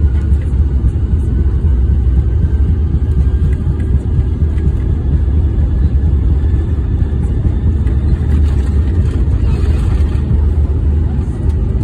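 Jet airliner's engines at takeoff power and its wheels rolling fast on the runway, heard inside the passenger cabin: a loud, steady, deep rumble.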